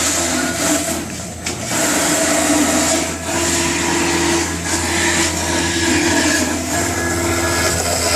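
Foam-cutting CNC router running: a steady motor hum with stepper-motor tones that start, stop and shift pitch as the machine changes moves, dipping briefly about a second in.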